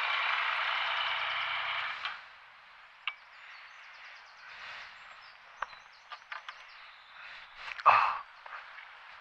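Yamaha Tracer 900 motorcycle's inline-three engine running, then cut off abruptly about two seconds in. Small clicks and knocks follow, with one louder thump near the end.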